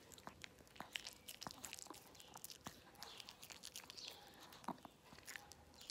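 Small dog biting and chewing a peeled banana close to the microphone: faint, irregular wet mouth clicks and smacks.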